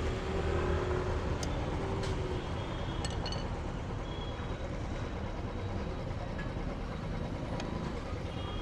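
Steady road traffic noise with a low rumble, with a few faint clicks and taps.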